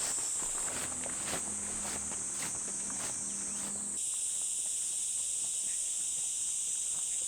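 Steady high-pitched insect chorus, with footsteps crunching on a dirt and gravel path for about the first half; the footsteps stop suddenly about four seconds in, leaving the insects.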